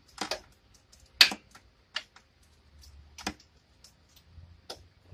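Hand tools being handled against metal: a handful of sharp, separate clacks, the loudest about a second in, with fainter ticks between.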